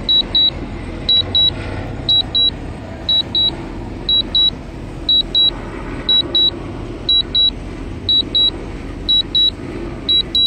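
Drone remote controller sounding its low-battery warning: a pair of short, high beeps repeating about once a second, the sign that the drone's battery is low and it must be landed. Under the beeps runs a steady low background noise.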